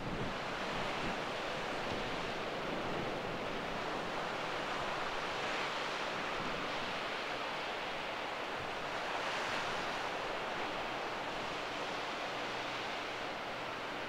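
Surf breaking and washing ashore: a steady rushing that swells a little about five and again about nine seconds in, with wind buffeting the microphone.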